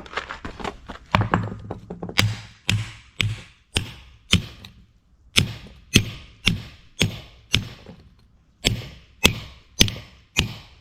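Hammer blows on a Case 496 disc harrow's gang as its new discs and bearings are driven together: repeated sharp strikes, about two a second, with two short pauses.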